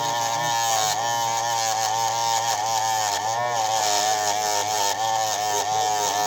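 A small electric motor buzzing continuously, its pitch wavering slightly up and down.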